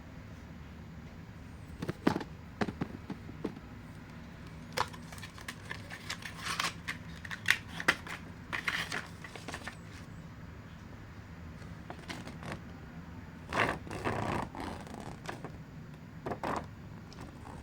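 Hands handling packaging and small plastic parts while unboxing earbuds: scattered clicks, taps and short rustles, bunched in clusters, over a steady low hum.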